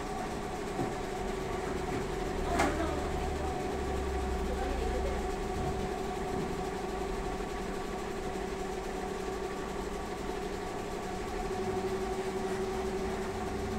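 Maya single-head embroidery machine switched on and standing idle, giving a steady electrical hum with a few constant tones. One sharp click comes about two and a half seconds in.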